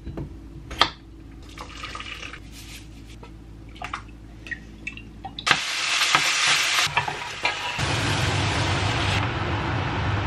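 A few knife taps on a wooden chopping board over a steady low hum. About five seconds in, mince starts sizzling loudly in a frying pan as it is stirred.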